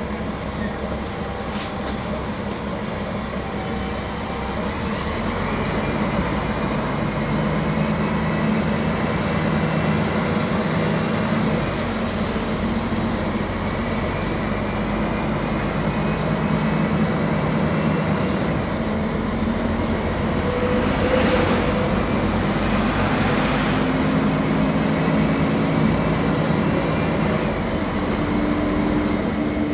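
Mercedes-Benz OM-457 LA straight-six diesel of an O-500 MA articulated bus running under way, heard inside the cabin. The engine note grows louder about five seconds in and climbs in pitch near the end, with a brief rush of noise a little past the middle.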